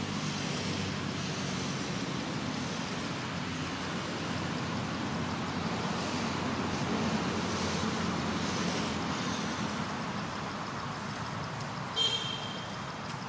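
Steady low rumble of motor-vehicle traffic, swelling a little midway as a vehicle passes. Near the end comes a short, high-pitched squeak.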